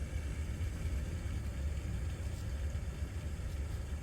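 Steady low rumble of an idling vehicle engine, even throughout.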